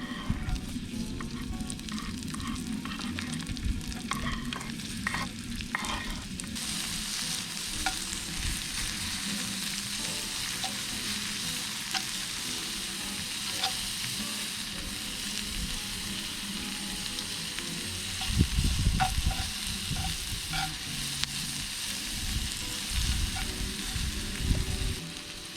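Food frying in a skillet for paella over a fire pit, with a utensil clicking against the pan as it is stirred. About six seconds in the sizzle gets markedly louder and stays steady, and later a few dull low knocks stand out above it.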